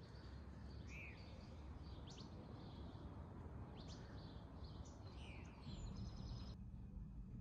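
Faint outdoor ambience of birds chirping, a series of short rising and falling calls, over a low steady rumble. About two-thirds of the way through the bird calls stop abruptly, leaving only a low hum.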